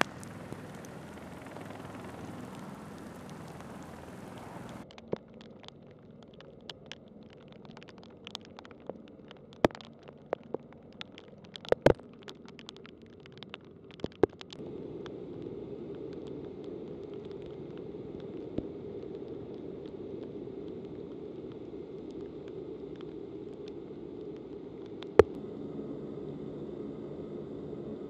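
Heavy rain on an airfield ramp. For the first few seconds there is a steady hiss, then scattered sharp taps of drops for several seconds. From about halfway a steady low machine hum takes over.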